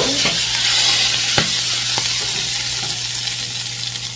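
Hot oil poured over a yogurt-tahini chickpea fatteh, sizzling and crackling as it hits the topping, with a few sharp pops; the sizzle slowly dies down.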